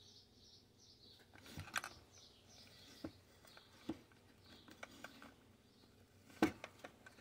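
Faint scattered clicks and light knocks from the metal-framed, glass-paned tower of a Johnson Model D fare box as it is handled and turned over, with one sharper knock about six seconds in.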